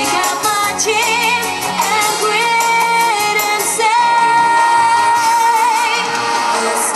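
Stage-show music with a sung melody; about four seconds in, a long note is held with vibrato.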